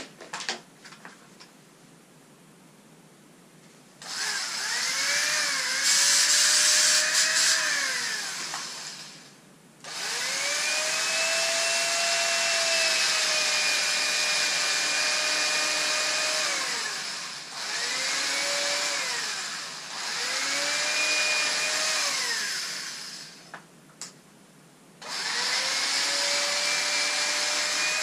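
A handheld electric fabric cutter's motor whining as it cuts stretch lycra, running in five spells of a few seconds each. Its pitch rises at each start and falls away at each stop, with short gaps between, after a few clicks and a quiet spell at the beginning.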